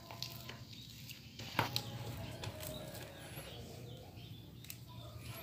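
Faint scraping and patting of a hand and a plastic spatula working a crumbly wheat-flour and tapioca-starch dough in a plastic bowl, with a few light knocks, the sharpest about a second and a half in, over a steady low hum.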